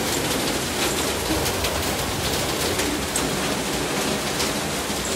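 Heavy rain falling: a steady hiss with scattered ticks of individual drops.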